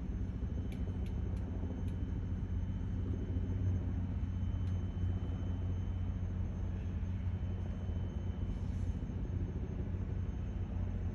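Steady low engine drone, with a few faint clicks in the first couple of seconds.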